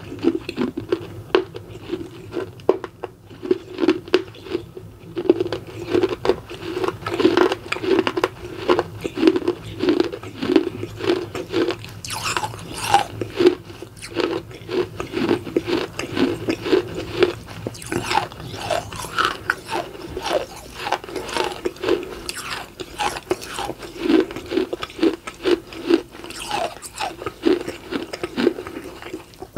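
Close-miked crunching and chewing of baked clay: a piece of a terracotta pot is bitten and ground between the teeth, with crisp crunches at a steady chewing rhythm of about two a second.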